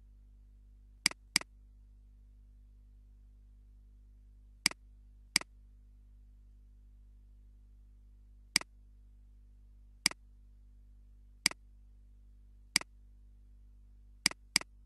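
Computer mouse button clicking: nine sharp clicks spread out, some in quick pairs, over a steady low electrical hum.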